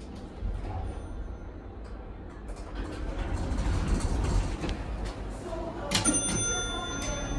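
Heights elevator doors sliding open with a low mechanical rumble. About six seconds in, a click and a steady electronic beep sound as the car's STREET button is pressed.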